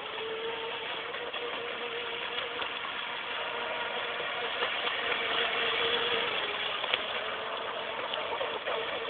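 Electric radio-controlled mono racing boat running flat out across the water: a steady whine of motor and propeller over the hiss of spray. The whine drops away about six seconds in.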